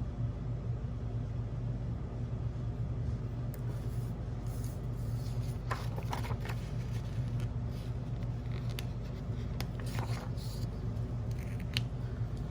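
Paper and stickers being handled: scattered small rustles and clicks, most of them in the middle stretch, over a steady low hum.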